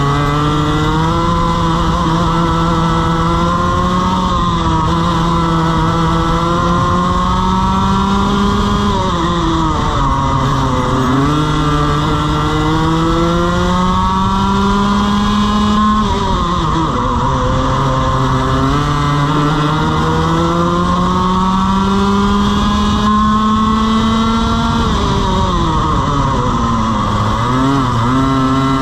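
Two-stroke TaG racing kart engine at race pace, heard on board. Its pitch climbs steadily for long stretches as it accelerates and drops sharply three times as the kart slows for corners: about a third of the way in, just past halfway, and near the end.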